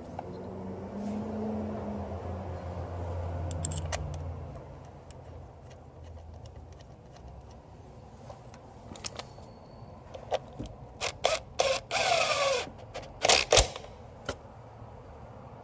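Hand tools and engine parts being handled while an ignition coil is fitted: scattered sharp metallic clicks and rattles, bunched in the last few seconds with a short ratchet-like burst near the end. A low hum runs through the first few seconds.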